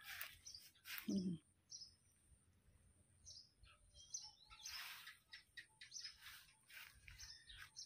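Small birds chirping faintly: short, high chirps, some falling in pitch, scattered irregularly, over a steady high-pitched tone.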